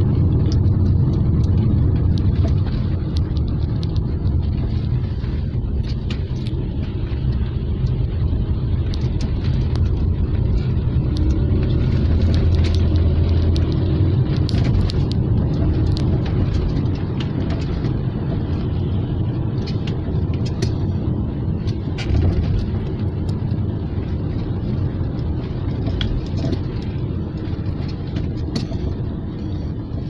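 A moving car's steady low rumble of engine and tyres on the road, with scattered light clicks and knocks.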